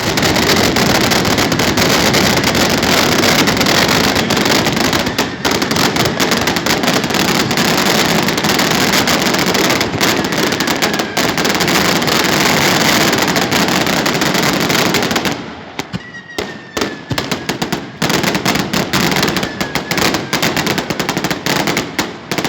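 Fireworks going off: a dense, rapid crackling of firecracker bangs for about fifteen seconds, then thinning out into separate sharp bangs, with a faint falling whistle twice near the end.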